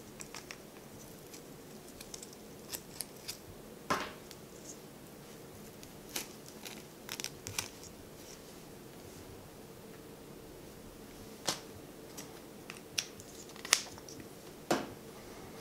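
Scattered small clicks and rattles of hands handling a plastic line-stripper spool and its snap-on cap, a dozen or so short taps with the sharpest click near the end.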